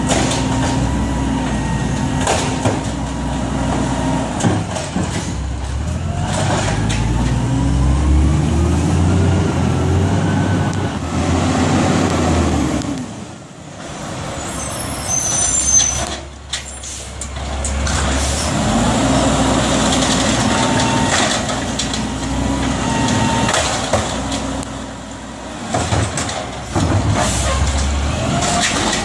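Peterbilt automated side-loader garbage truck at work: its diesel engine runs and revs up and down in rising and falling pitch to drive the hydraulics, with short air-brake hisses.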